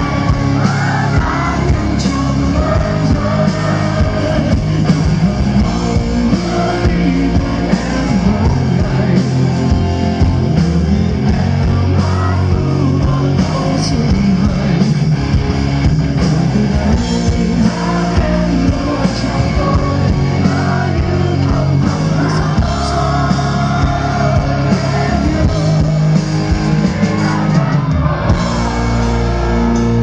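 Live rock band playing: a male singer over electric guitars and drums, amplified through a PA.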